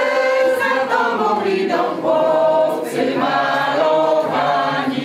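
Group of men and women singing a Polish patriotic song together, unaccompanied, holding long sung notes.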